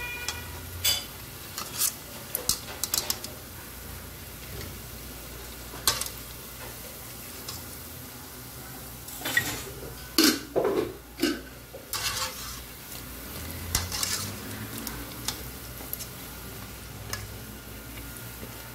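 Dough balls frying in hot oil in an aluminium pot, with a faint steady sizzle under irregular clinks and scrapes of a metal utensil against the pot, busiest about halfway through.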